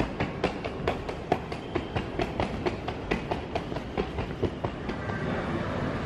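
Rhythmic clacks of walking on a hard terminal floor, about two or three a second, that stop about five seconds in and give way to the steady hum of a large terminal hall.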